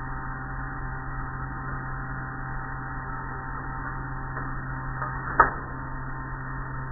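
Automatic car wash machinery running over the car, heard from inside the car: a steady low hum under a wash of spray and cloth strips, with one sharp knock about five and a half seconds in.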